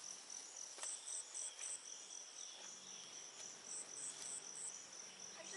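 Crickets chirping: a steady high trill, with a higher chirp repeated in short runs of three or four pulses, and a few faint ticks.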